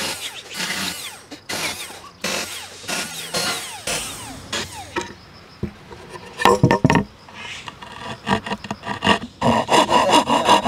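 Cordless drill boring into a wooden board in short bursts, its motor pitch rising and falling. After a short lull come rapid, rhythmic strokes of a narrow saw blade cutting through the board, loudest near the end.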